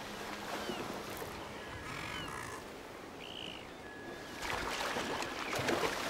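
Seabirds calling, a few short high calls over a steady rushing background of sea and colony noise.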